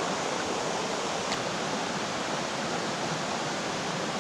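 Mountain river rushing over rocks, a steady, even wash of water, with a single small click about a second in.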